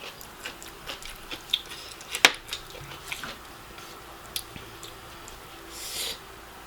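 Close-miked eating sounds of saucy noodles: soft wet chewing and lip smacks with scattered small clicks, one sharper click about two seconds in, and a short breathy hiss near the end.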